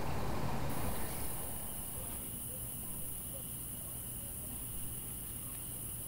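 Crickets trilling steadily and high, over a low hum; a broader hiss fades out about a second in.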